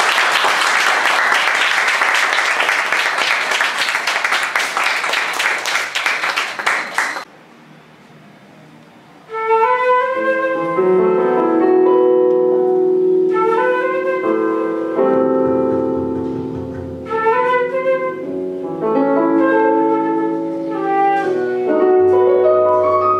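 Audience applauding for about seven seconds, then a brief lull. About nine seconds in, a small jazz band starts a tune: a flute melody over keyboard chords, with low double bass notes coming in later.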